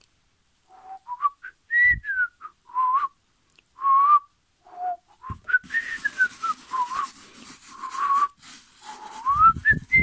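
A person whistling a tune, short notes gliding up and down in pitch. From about halfway there is a faint scratchy rustle of a hand spreading dirt over carpet.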